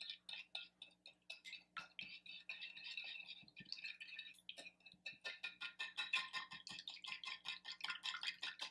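Wire whisk beating a liquid egg, milk and mayonnaise mixture in a glass baking dish, its wires clicking rapidly and unevenly against the glass, with a brief lull about halfway through.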